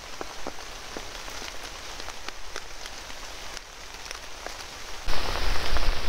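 Rain falling on the leaves of trees and undergrowth: a steady hiss broken by many separate drip and drop ticks. About five seconds in, a sudden louder rushing with a low rumble takes over.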